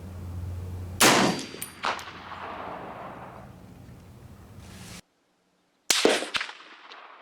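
Two rifle shots from an M1A semi-automatic rifle in .308/7.62 NATO, each a sharp crack with a long ringing echo. The first comes about a second in and the second near the end, after an abrupt cut in the sound, with a few small metallic clicks following it.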